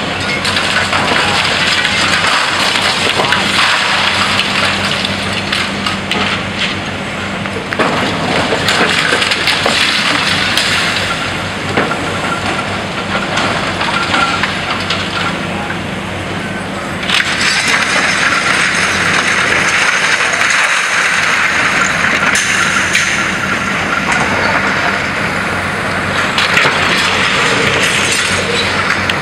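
High-reach demolition excavator's crusher jaws breaking into a concrete office block: continuous cracking, crunching and clattering of breaking concrete, glass and falling rubble, with the machine's engine humming underneath. The breaking gets louder a little past halfway.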